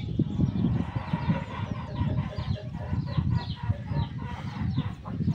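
Paintbrush scrubbing black paint onto a wooden trailer board in quick back-and-forth strokes, with chickens clucking repeatedly.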